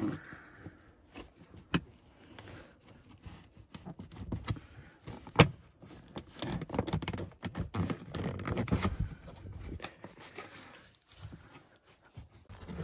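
Plastic interior pillar trim panel being pulled free by hand: scattered clicks and knocks of plastic and its clips, with rustling and scraping of handling. Two sharp clicks stand out, about two and five and a half seconds in.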